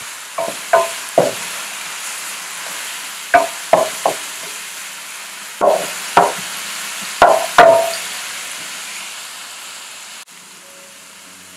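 Onion, garlic and chopped vegetables sizzling in hot olive oil in a stainless steel pan, while a wooden spoon stirs them and knocks and scrapes against the pan in short groups of two or three. The sizzle drops near the end.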